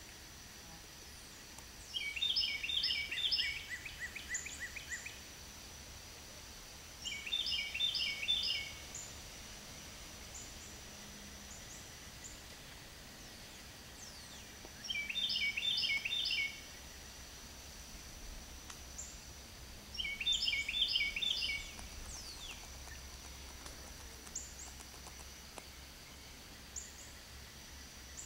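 A songbird singing four short songs, each a quick run of repeated high notes lasting about two seconds, a few seconds apart, over a thin steady high-pitched tone and quiet outdoor background.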